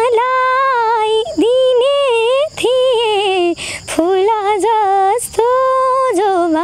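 A young woman singing a Nepali song solo and unaccompanied, in phrases with long held notes and short breaths between them.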